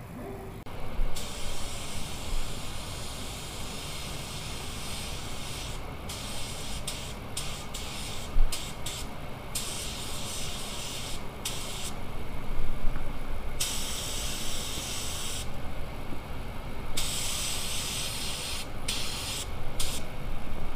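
Compressed-air paint spray gun hissing in repeated passes. The hiss starts and stops as the trigger is pulled and released, sometimes in quick short bursts and sometimes in runs of a second or two, over a steady low background noise.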